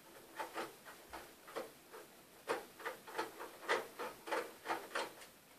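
Irregular light clicks and ticks of plastic and metal parts inside a partly dismantled Kyocera laser printer being worked loose by hand, a few per second and stronger after about two and a half seconds.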